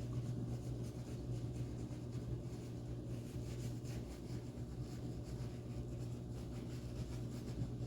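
Shaving brush scrubbing and swirling shaving-soap lather, a soft irregular scratchy rubbing, over a steady low hum.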